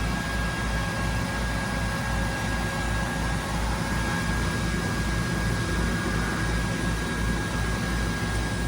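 Doosan DNM500 vertical machining center running under power: a low pulsing hum with a steady high whine that sets in at the start.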